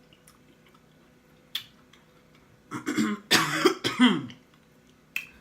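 A person coughing and clearing their throat in about three harsh bursts, starting just under three seconds in. A single short click comes shortly before.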